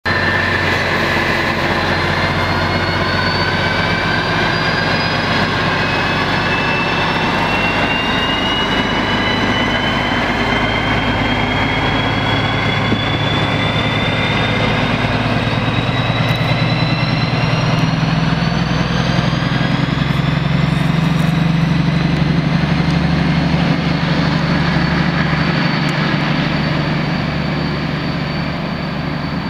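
DB class 218 diesel-hydraulic locomotive 218 447-1 pulling away under power, its diesel engine running hard with a high whine that climbs steadily in pitch as it gathers speed. The sound swells through the middle and eases a little near the end.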